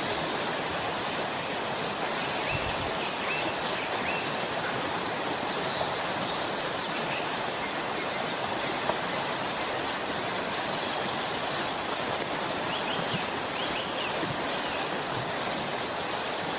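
Small forest waterfall on a brook, water rushing steadily, with birds chirping briefly a few times over it.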